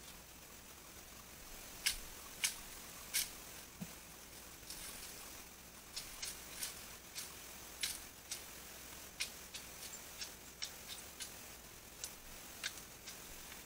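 Irregular sharp snaps and clicks of dry bamboo and twigs being handled and broken, a few loud ones about two seconds in, then a scatter of lighter ones every half second or so, over a faint steady hiss.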